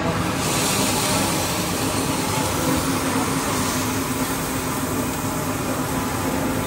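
Seafood sizzling on a hot flat-top griddle: a steady hiss, with a faint low hum underneath.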